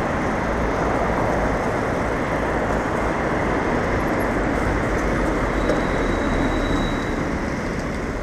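Steady road noise heard from a bicycle moving along a wet city street: the rush of the ride and tyres on wet tarmac, with city traffic around.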